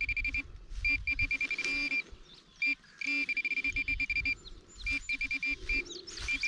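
Garrett Pro-Pointer AT pinpointer beeping in rapid runs of short, same-pitched beeps that stop and start again several times as it is probed through the dirt, homing in on a buried metal target. Dull scraping and thuds of soil being handled underneath.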